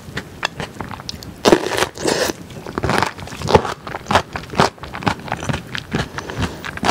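Close-miked chewing of kimchi: many irregular wet, crunchy mouth clicks and smacks, with a denser crunching stretch about a second and a half in.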